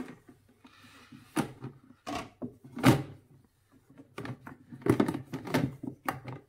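Plastic drying rack knocking and clacking against the bottle washer's plastic chamber as it is pressed into place: a string of separate knocks, the loudest about three seconds in and a quick cluster around five seconds in.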